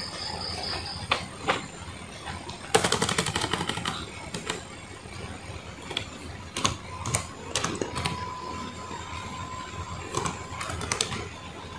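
Keys being tapped on a Lenovo B490 laptop keyboard: a quick run of clicks about three seconds in, then scattered single key clicks.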